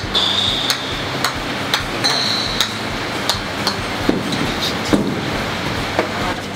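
A golf ball being juggled on the face of a golf club, giving sharp clicks about twice a second.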